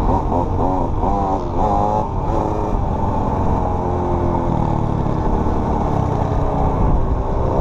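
Small dirt bike engine revving up and down in quick pulls for the first couple of seconds, then holding a steady speed, and picking up again near the end. Wind rumble on the microphone sits underneath.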